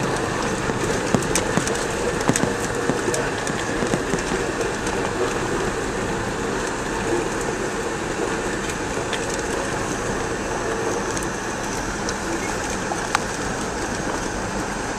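Steady rumble of vehicle noise with light rattling, with a scatter of sharp clicks and knocks in the first few seconds and one more near the end.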